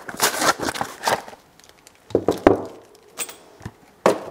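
A cardboard box of Spicer U-joints being opened and unpacked by hand: paper packaging rustling and crinkling, with a couple of sharp clicks, one about two and a half seconds in and one near the end.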